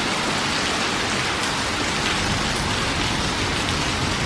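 Heavy rain pelting down in a steady hiss, with a low rumble of passing traffic that builds from about a second and a half in.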